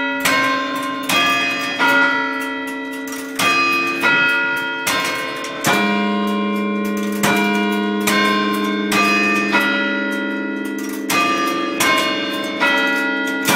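Clock tower bells struck by the clock's striking machinery, ringing a chime tune in phrases of four notes at different pitches, each strike ringing on into the next.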